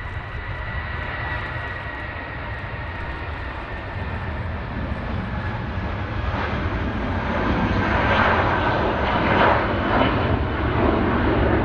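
Jet airliner's engines, a steady whine over a rumble that grows steadily louder as the aircraft comes nearer.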